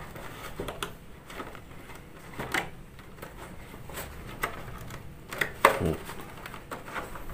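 Clear plastic blister packaging crackling and clicking as hands pry it open, in scattered clicks with the loudest snap about five and a half seconds in.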